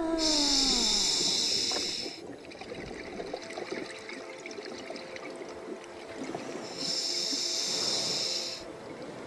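Scuba regulator exhaust underwater: two bubbling exhalations about two seconds long each, one at the start and one near the end, with quieter hiss between breaths. A falling tone fades out in the first second or two.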